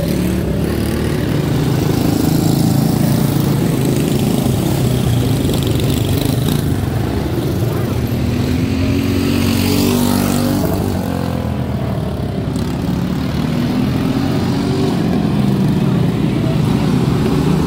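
A pack of quarter midget race cars' small single-cylinder Briggs & Stratton Animal engines running around a dirt oval, their pitch rising and falling as cars pass close by, with the strongest passes about eight to eleven seconds in.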